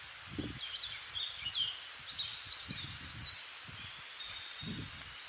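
Small birds chirping in short, high calls over a steady outdoor hiss, with a few dull low thumps.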